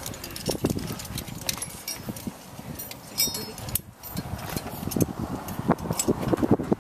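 Metal climbing hardware clinking and clicking as carabiners and a rappel device are clipped onto a harness, with a brief metallic ring about three seconds in.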